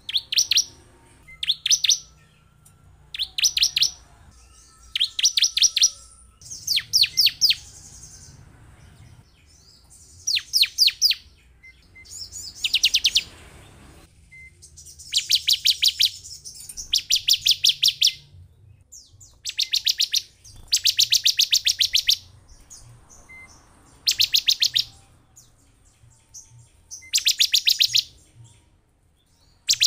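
Bar-winged prinia (ciblek) calling in repeated short bursts, each a rapid rattling series of sharp, high notes, coming every second or two: a lure call used to rouse other ciblek into song.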